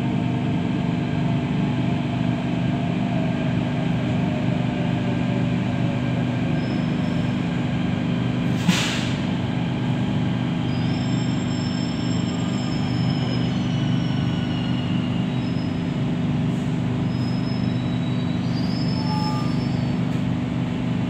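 Delhi Metro train heard from inside the coach: a steady low running hum, with thin high wheel-and-brake squeals from about six seconds on as it slows alongside the station platform. A single sharp click a little under nine seconds in.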